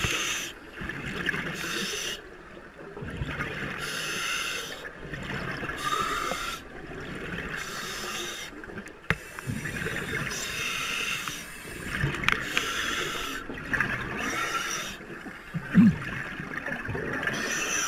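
Scuba diver breathing fast through a regulator underwater, the breaths hissing and bubbling in a quick, regular rhythm about every second or two. A short louder knock near the end.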